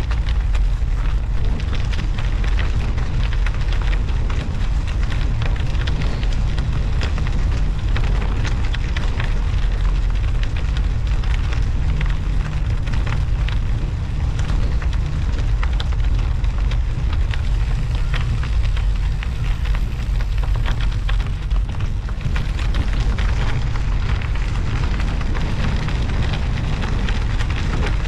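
Steady wind noise on a bicycle-mounted action camera's microphone while riding, over a continuous fine crackle of Schwalbe Marathon Winter Plus studded tyres rolling on a snowy, icy road.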